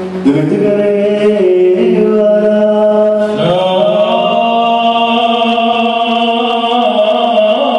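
Liturgical chant sung in long held notes for the Gospel (Evangelion) reading of an Orthodox church service. The held notes shift to a new, slightly rising set about three and a half seconds in.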